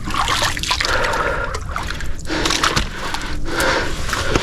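A person wading through deep water, legs pushing through it with repeated sloshing and splashing surges.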